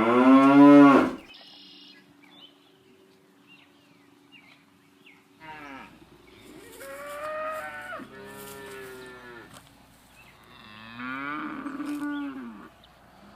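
Holstein cows mooing: a loud moo that ends about a second in, then after a pause four more moos in the second half.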